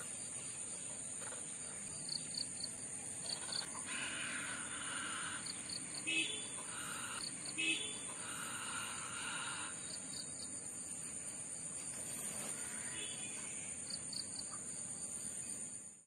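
Steady high-pitched insect drone, with repeated short bird chirps and calls over it that are busiest from about four to ten seconds in.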